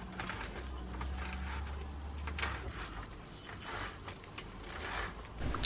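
Faint irregular mechanical clicks and rattles over a low steady hum that stops about two and a half seconds in.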